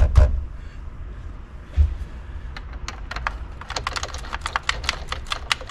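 A couple of hand smacks at the very start, seating the steering wheel onto the column shaft. Then a single thump, and a run of light, quick metal clicks and taps from about halfway in, as the retaining nut is started on the shaft by hand.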